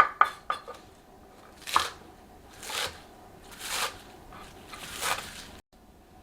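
Kitchen knife cutting fresh vegetables on a cutting board: three quick sharp chops, then four slower crunching cuts about a second apart, stopping abruptly near the end.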